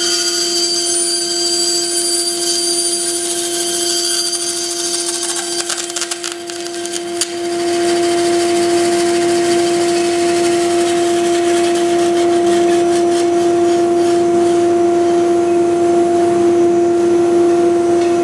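Bandsaw cutting lengthwise through a plastic USB flash drive and its metal connector: a steady motor hum under a high whining rasp from the blade in the cut. About six or seven seconds in the cut finishes, and the saw runs on free with only its steady hum.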